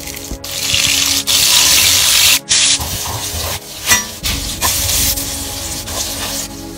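Hot oil sizzling hard in a cast-iron pot as dried red chilies fry in it, with a few sharp clicks from stirring. The sizzle is loudest for the first two seconds or so, then settles to a steadier hiss that fades near the end.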